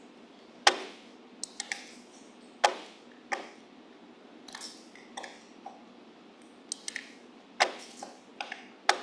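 Computer mouse and keyboard clicking: irregular sharp clicks, some single and some in quick runs of two or three.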